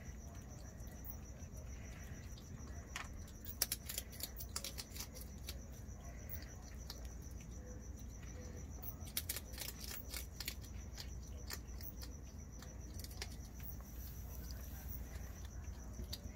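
A cricket trilling steadily at a high pitch, with scattered sharp clicks and crunches from skunks eating dry food out of bowls, the loudest about three and a half seconds in and a cluster around nine to ten seconds.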